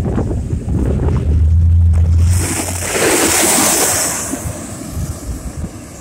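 Garbage truck and car driving up the road toward the microphone, with a low engine hum, then a loud hiss about two and a half seconds in that lasts about two seconds.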